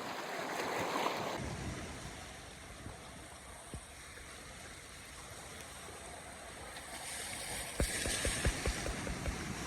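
Steady outdoor noise of water and wind, changing abruptly about a second and a half in, with a quick run of knocks near the end.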